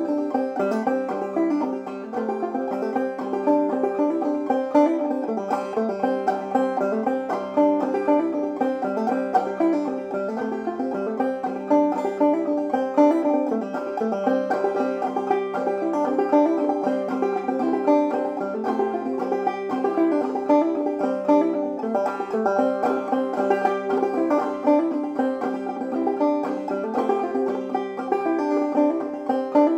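Five-string banjo played clawhammer style in double C tuning (gCGCD): a steady, bouncing stream of plucked notes with the drone string sounding between melody notes.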